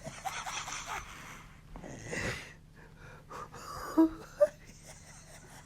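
A person's heavy, wheezy breathing: one long breath in the first second and another about two seconds in, with a couple of short throaty sounds around four seconds.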